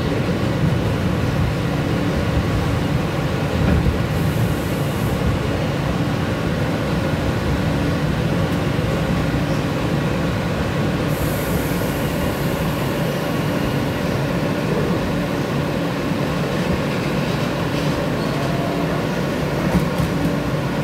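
Steady running noise of an R160 subway car in motion, heard from inside the car: a continuous low rumble of wheels on the rails with a faint steady hum.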